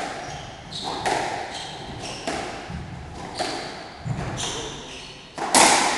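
Squash rally: a racquet strikes the ball and the ball hits the court walls, about once a second, echoing in the hall, with sneakers squeaking on the wooden floor between shots. The loudest strike comes near the end.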